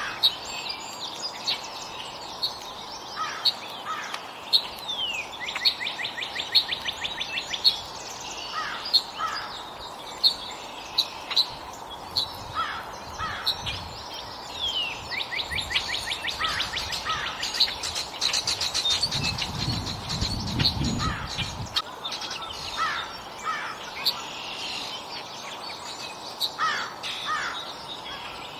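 Wild songbirds chirping at a feeding spot: many short high chirps, with rapid trills of quickly repeated notes that each last a few seconds. A brief low rumble comes about two-thirds of the way through.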